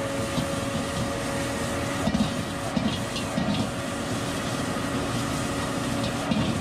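Metal wok spatula scraping and clattering against a wok while stir-frying fried rice, in quick irregular strokes over a steady background noise.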